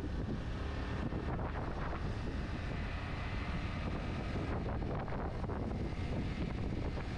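Motorcycle ridden at steady speed: wind rushing over the helmet microphone, with a steady engine hum and road noise underneath.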